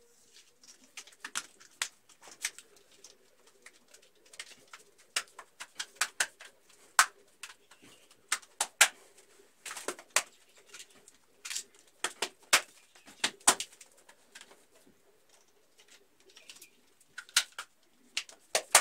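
Sharp, irregular clicks and snaps of plastic cable trunking and electrical wire being handled and fitted by hand, several to a second in places, over a faint steady low hum.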